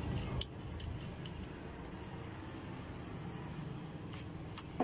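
A few light clicks as small parts of an electric iron's thermostat assembly are handled and fitted, over a steady low background rumble.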